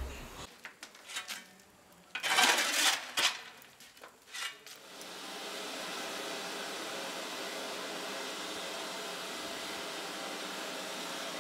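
Metal clanking and clattering for the first few seconds, loudest about two seconds in. From about five seconds on, a steady hiss of steam from the pumping station's boiler plant.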